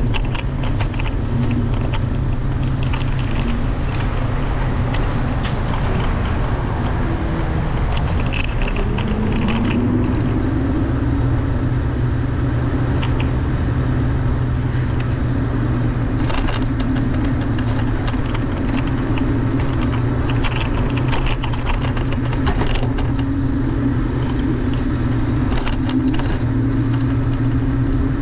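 Steady running drone and road rumble of the small vehicle carrying the camera, with scattered clicks and rattles over bumps in the pavement. Its pitch rises about nine seconds in, then holds steady.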